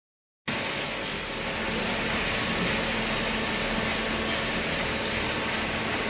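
Hydraulic waste-paper baler running: a steady mechanical drone from its motor and hydraulic pump, with a constant low hum underneath. It cuts in abruptly about half a second in and holds level throughout.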